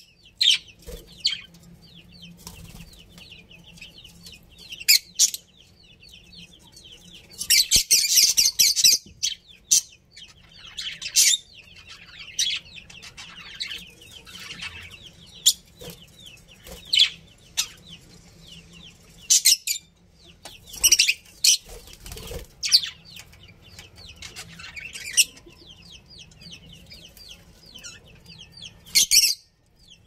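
Budgerigars chattering in short, high chirping bursts, with a dense spell of chatter about eight seconds in.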